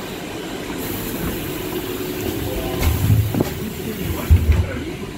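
Interior running sound of a TrolZa-62052.02 trolleybus: a steady electric hum with a high hiss over the middle of it. Two heavy low thumps come about three seconds in and again a second or so later.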